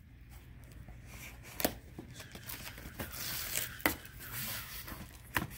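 New, shrink-wrapped vinyl records being handled as they come out of a shipping box: plastic and cardboard rustling and sliding, with sharp knocks about a second and a half in, just before four seconds and near the end.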